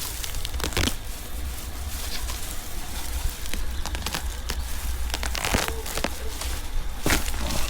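Rustling, crackling and tearing of plant material and soil handled by bare hands, with scattered sharp snaps, over a steady low rumble.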